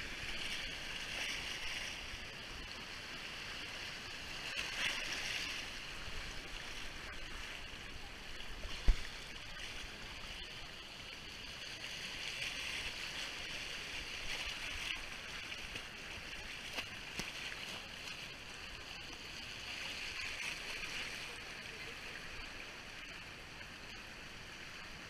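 Creek water rushing and splashing over shallow rocky rapids, heard close to the water's surface, a steady hiss that rises and falls a little. One sharp knock about nine seconds in.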